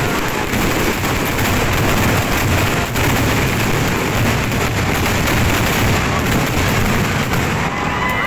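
Dense fireworks barrage: many shells and crackling stars bursting at once, giving a continuous crackle over a low booming rumble.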